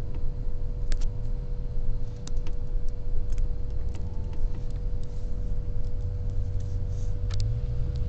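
Road noise inside a moving car: a steady low rumble with a faint constant hum, and a scattering of light clicks.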